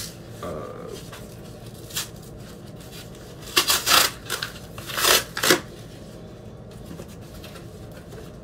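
Cardboard mailer being torn open by hand: two short bouts of ripping and rustling, about three and a half and five seconds in.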